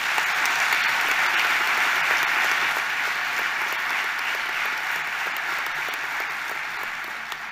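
Audience applauding, a steady crowd of hand claps that slowly tapers off near the end.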